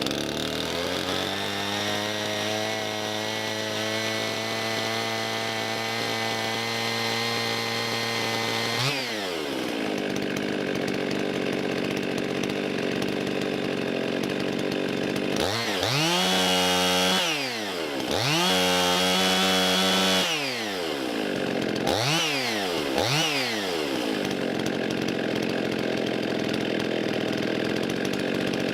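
Rebuilt Husqvarna 55 Rancher two-stroke chainsaw engine running: it idles steadily for the first several seconds, then is revved up to high speed and held twice for about two seconds each, followed by two quick throttle blips. It idles and takes the throttle cleanly with the missing impulse-line grommet now fitted, which the owner names as the cause of its not running.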